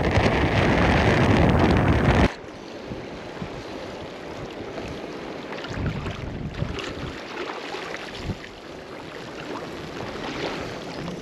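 Wind on the microphone, loud and rushing for about the first two seconds, then dropping abruptly to a quieter wind and water rush with scattered small knocks.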